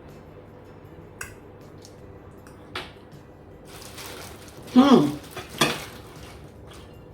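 Bowls and cutlery clinking while eating, with a few sharp clicks. About five seconds in comes a brief loud sound that rises and falls in pitch, followed by a short noisy burst.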